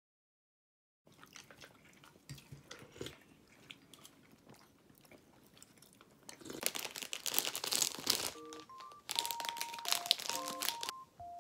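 A plastic snack wrapper crinkling loudly as a packaged chocolate eclair is unwrapped, after a second of silence and some faint clicks and small chewing sounds. A simple melody of plain electronic notes in the background music comes in about two-thirds of the way through.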